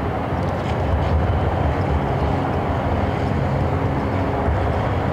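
A steady low mechanical rumble, with a low hum running under it.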